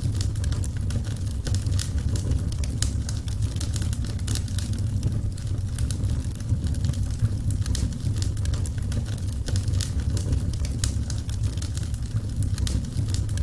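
Wood fire crackling steadily, with many small snaps and pops over a low rumble.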